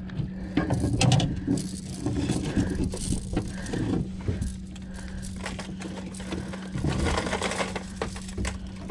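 Scattered knocks, clicks, scrapes and rattles of gear being handled on a metal boat deck, over a steady low hum.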